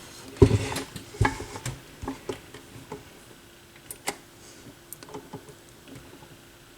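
Hands handling a turntable during a speed adjustment: a knock about half a second in, then scattered light clicks and taps that thin out, over a faint steady hum.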